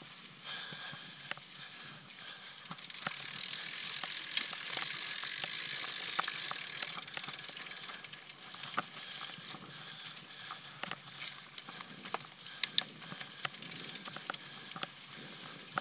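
Mountain bike riding along a dirt trail: tyre noise with the chain and parts rattling and clicking, louder between about three and eight seconds in, with a few sharper clicks near the end.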